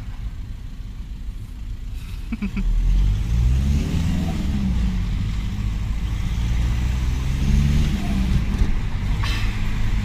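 Car engine and road noise heard from inside the cabin: the engine pulls harder about two and a half seconds in, revs rising, holds, then eases off near the end.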